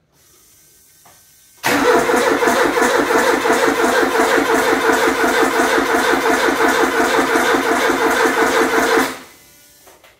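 Starter motor cranking the Maestro's freshly rebuilt 2-litre turbo engine for about seven seconds in an even, rhythmic chug that stops abruptly. The engine does not fire on this first attempt.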